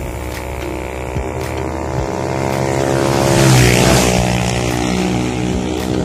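A motorcycle passes close by. Its engine grows louder to a peak about three and a half seconds in, then fades as the pitch drops.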